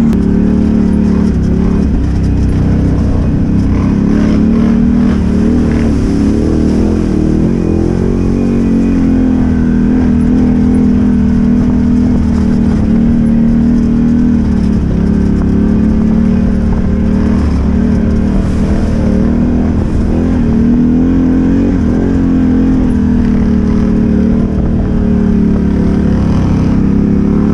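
Off-road vehicle engine running steadily under way, its pitch dipping and rising gently a few times with the throttle.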